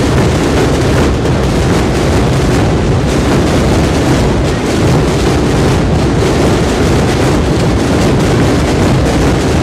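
Hundreds of drummers beating snare drums and large bass drums at once, merging into one loud, continuous rumbling roar with no single beat standing out.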